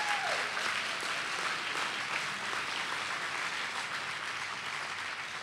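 Audience applauding, easing off slightly toward the end.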